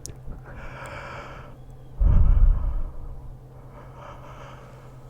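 A man yawning close to the microphone: a long breathy intake of breath, then about two seconds in a loud, heavy exhale that rumbles on the mic and trails off into quieter breathing.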